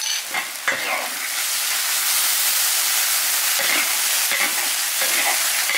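Stir-fry in a wok sizzling steadily over high heat as pig tripe, kidney and celery cook in a freshly added starch-thickened sauce. The spatula scrapes and knocks against the wok a few times, about half a second in and again around four to five seconds.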